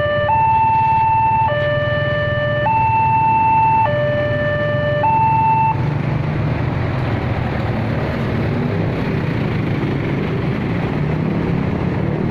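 Railway level-crossing electronic warning alarm alternating between two tones about every second, then stopping about six seconds in as the crossing clears. Motorcycle and truck engines run underneath and carry on as the traffic starts to move.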